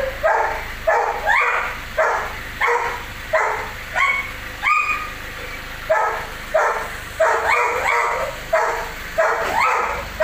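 A dog barking over and over, about one and a half barks a second, each bark rising in pitch, with a short break about halfway through.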